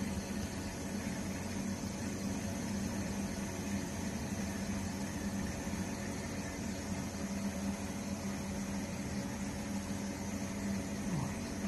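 Selective wave soldering machine running: a steady low hum with faint steady tones over an even hiss, unchanging throughout.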